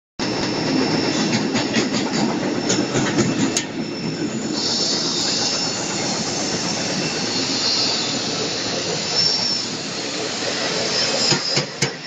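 Pet-feed powder processing machinery running: a steady loud mechanical din with a high metallic squeal that swells and fades, strongest about halfway through, and scattered clicks.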